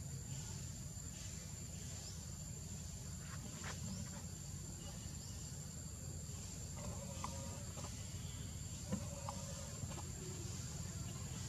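Steady, high-pitched drone of forest insects such as crickets or cicadas over a low rumble, with a few faint short calls in the second half.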